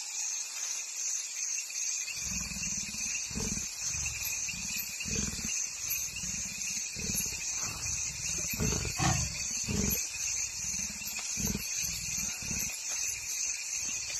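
Leopard growling low and rumbling in irregular bursts as it feeds, starting about two seconds in, over a steady night-time insect chorus of crickets pulsing about twice a second.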